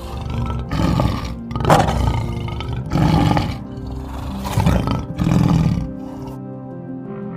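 A big cat (lion or tiger type) giving a series of loud calls, roughly one a second, over background music, stopping about six seconds in.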